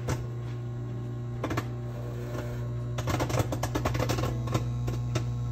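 Corn kernels popping on the cob inside a paper popping sack in a running Kenmore microwave oven: a steady microwave hum with sharp pops, a few scattered at first, then many in quick succession about three seconds in.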